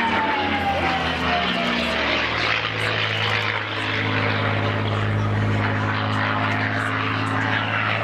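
Propeller aircraft engines running, a steady low drone. A high whine falls slowly in pitch over the first two seconds or so.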